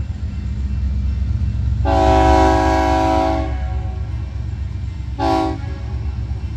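Locomotive air horn sounding a chord of several notes: one long blast of about a second and a half, then a short toot about two seconds later, over the steady low rumble of the train.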